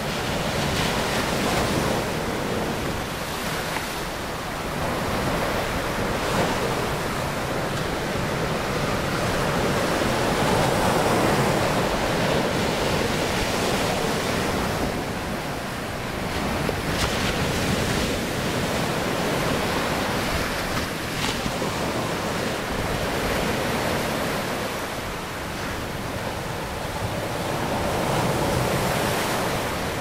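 Pacific Ocean surf breaking among rocks and washing up onto a sandy cove: a continuous rush of water that swells and falls back as each wave surges in.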